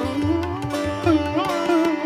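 Instrumental background music: a melody that bends up and down in pitch over a steady drone, with low drum strokes beating underneath.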